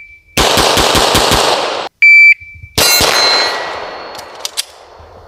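A burst of rapid gunfire lasting about a second and a half, then a short, loud, high beep. A single sharp blast follows about three seconds in and rings on, fading over about two seconds, with two short clicks near the end.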